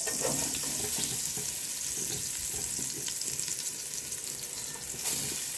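Hot ghee sizzling in a large aluminium pot as crumbled string hoppers are dropped into it by hand, a steady frying hiss with small crackles.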